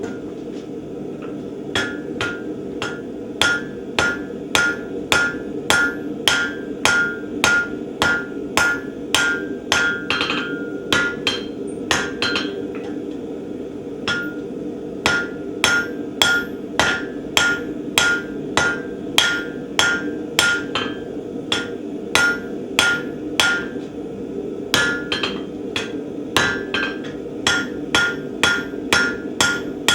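Hammer blows on hot steel bar stock over an anvil, about two a second, many with a clear ringing tone, as the end of a steel wagon standard is shaped. The hammering pauses briefly about halfway through and again near the end, over a steady low background hum.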